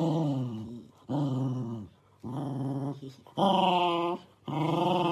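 A corgi growling in a run of five short, pitched growls, each under a second and several sliding down in pitch, as it snaps at the hand brushing it.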